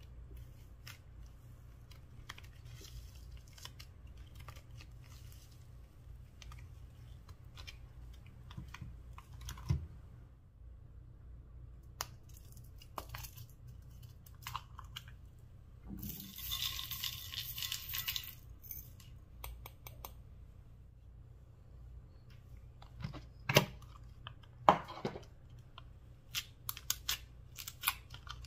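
Hands handling slime and small plastic containers close to the microphone: soft squeezing and scraping, a rasping scrape of about two seconds around the middle, and a few sharp clicks near the end, over a steady low hum.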